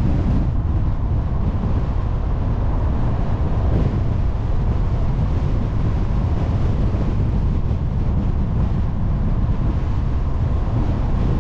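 Steady, deep rumble of a moving car's tyre and road noise, mixed with wind buffeting the microphone.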